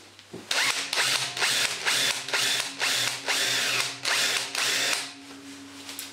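Power drill boring the head off a blind (pop) rivet, the bit cutting in a series of harsh grinding pulses about twice a second over a steady motor hum. The cutting stops about five seconds in as the head comes free, leaving the quieter hum of the motor.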